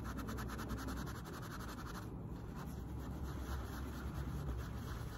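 Quick back-and-forth rubbing of a white pad on the metal ring at the base of a Louis Vuitton Speedy bag's leather handle, polishing tarnish off the hardware. The strokes pause briefly about two seconds in, then go on.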